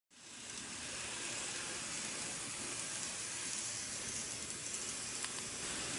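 N-gauge model train running along the track, a steady rolling hiss of its wheels on the rails that fades in at the start, with a couple of faint clicks near the end.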